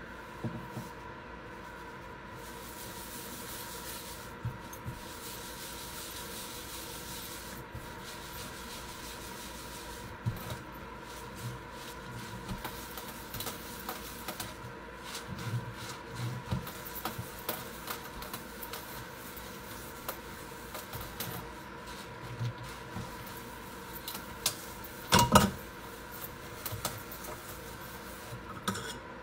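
Sponge scrubbing a stainless steel sink, a soft rubbing broken by many small scrapes and light knocks over a steady faint hum. A couple of louder knocks come near the end.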